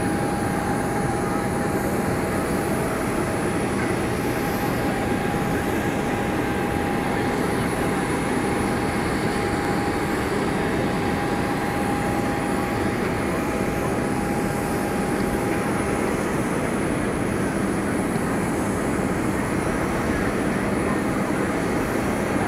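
Steady rushing noise of jet airliners, with a thin high whine that fades out about two-thirds of the way through.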